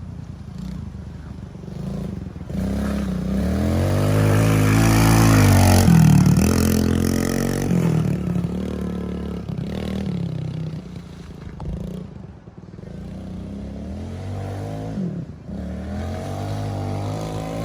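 Pit bike engine revving up and down as it is ridden. It is loudest about five to six seconds in and falls away around twelve seconds in before picking up again.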